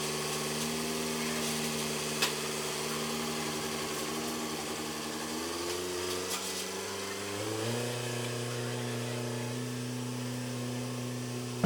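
Farm machinery engine running steadily, its speed stepping up twice, about halfway through and again a couple of seconds later. A single sharp click sounds about two seconds in.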